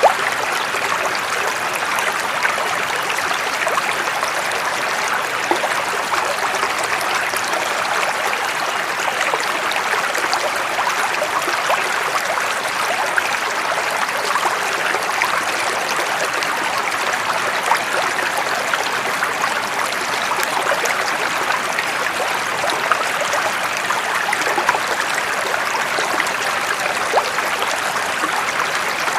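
Running water, a steady even rush flecked with many fine trickling splashes.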